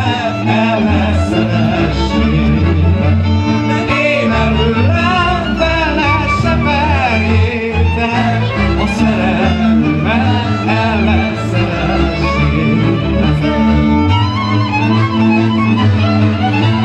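Live Transylvanian Hungarian village band music in the Györgyfalva style: fiddles playing a wavering dance melody over accordion and double bass.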